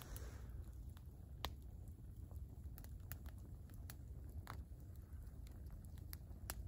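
Faint, steady low rumble of wind buffeting the phone's microphone outdoors in winter woods, with scattered faint ticks through it.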